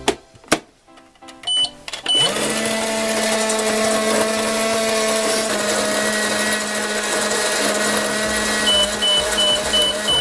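A microwave being started: a few clicks and two short button beeps, then it runs with a steady hum for about eight seconds, ending in a string of short, evenly spaced beeps as it finishes.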